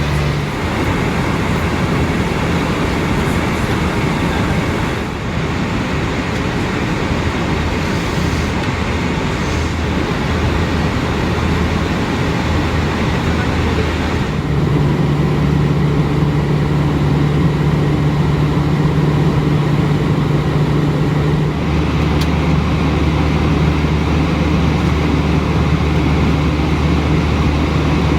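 Airbus A320 passenger cabin noise in flight: a loud, steady rush of airflow with the jet engines' low drone underneath. The low hum changes twice, about halfway through and again a few seconds later.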